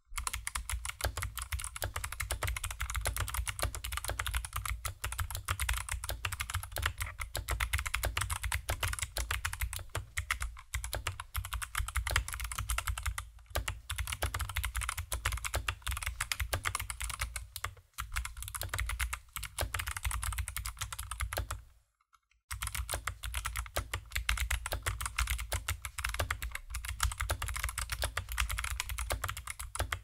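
Fast continuous typing on a custom full-size mechanical keyboard with stock Kailh Box Jade clicky switches and foam inside the case: a dense stream of sharp clicks, with a brief pause about two-thirds of the way through.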